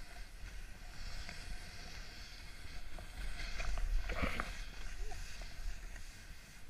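Wind buffeting an action camera's microphone and the steady hiss of riding through deep powder snow, with a louder rush of snow about four seconds in.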